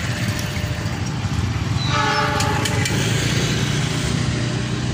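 Horn of an approaching CC206 diesel-electric locomotive, a long steady blast beginning about two seconds in, over a steady low rumble.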